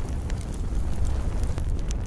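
Campfire burning, with scattered sharp crackles and pops of the wood over a steady low rumble.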